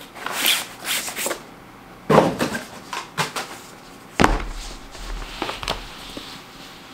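A rolled cloth gaming mouse mat and its cardboard box being handled: scraping and rustling as the mat slides out of the box, then knocks as the roll is handled and unrolled. The sharpest knock comes about four seconds in, with a low rumble after it.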